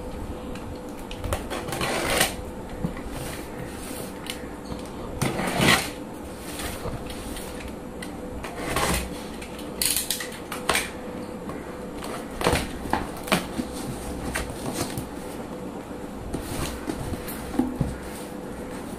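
A utility knife slitting the packing tape on a cardboard box and the cardboard flaps being pulled open, heard as a series of short scraping and tearing noises with a steady hum underneath.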